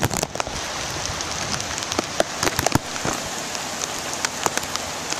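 Steady rain, with many sharp ticks of drops striking a plastic bag wrapped close around the microphone.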